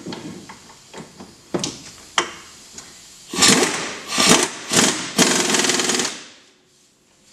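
Impact wrench hammering the brake caliper mounting bolts into a C6 Corvette's front hub, in two short rattling bursts about halfway through, after a couple of sharp clicks.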